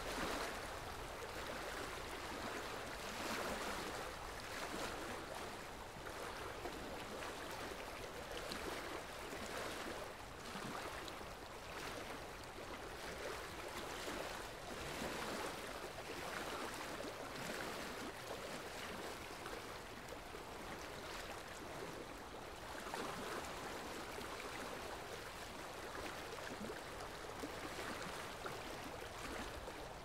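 Shallow river rushing and splashing over a rocky riffle: a steady, unbroken water noise with a slight swell and ebb.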